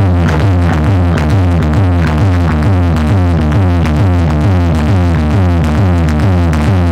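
Loud electronic dance music blasting from a street DJ sound system, a stacked wall of horn loudspeakers: a heavy bass beat under a repeating falling synthesizer line.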